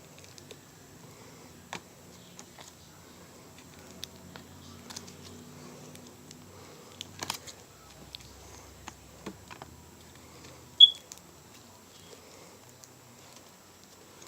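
Slime being squished and stretched by hand, with faint scattered clicks and small crackles. One short, high beep about eleven seconds in is the loudest sound.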